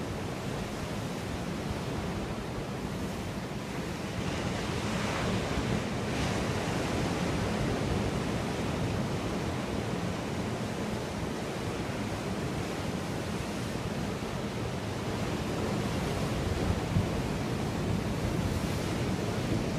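Steady wash of ocean surf on a rocky shore, with low wind rumble on the microphone; a surge of surf swells up about five seconds in.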